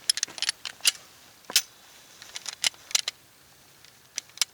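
Irregular sharp clicks and light metallic clinks of Glock pistol parts and barrels being handled and set down, the loudest about a second and a half in.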